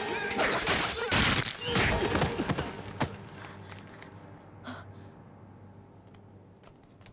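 Fight sound effects: several quick swishes and hits with gasping breaths in the first three seconds, then a quiet low steady hum.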